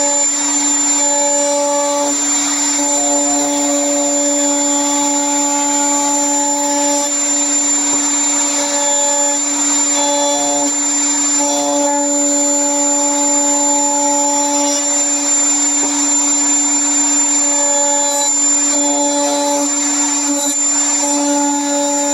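Router table running at high speed with a steady whine and high whistle, as a wooden block is fed by hand along the spinning bit to shape its edge; the pitch shifts slightly now and then as the bit cuts.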